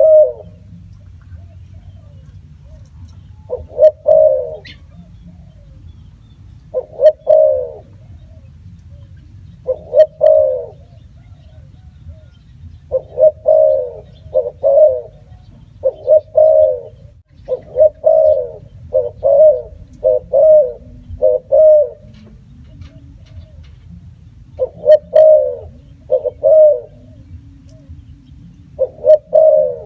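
Spotted dove cooing: short, low coos repeated throughout, every few seconds and at times several in quick succession. A steady low hum runs underneath.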